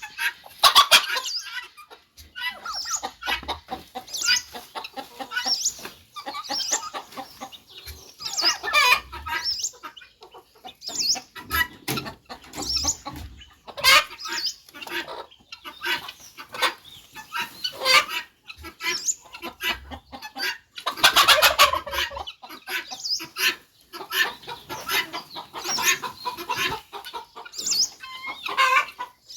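A flock of chickens clucking and calling in a dense, irregular chatter of short, high calls, with busier flurries about halfway through and again later on.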